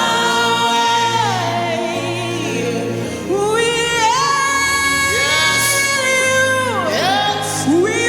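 Gospel worship singing: a voice holding long notes and sliding between them, over a steady low instrumental backing.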